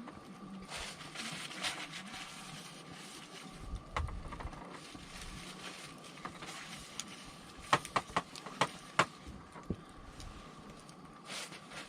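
Wood campfire burning with a steady hiss and scattered crackles, then a quick run of five sharp pops a little past halfway.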